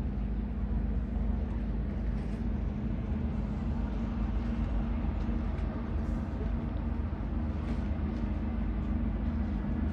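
Outdoor city ambience by a river: a steady low hum holding one pitch over a constant rumble of distant traffic and machinery.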